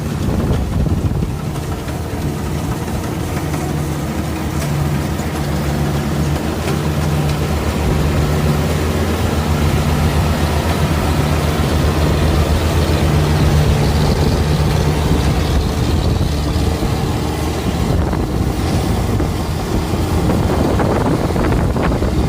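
Combine harvester engine running steadily at a constant speed.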